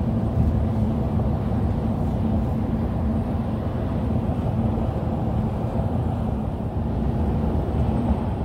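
Steady road and engine noise heard from inside a car cabin at highway speed, with a constant low drone.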